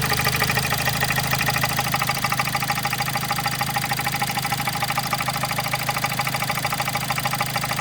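Kia Sportage 1.7 CRDi D4FD four-cylinder diesel engine idling with the oil filler cap off, giving a loud, fast, even clatter from the open filler neck. The dealer's mechanics take the noise to be most likely the injectors.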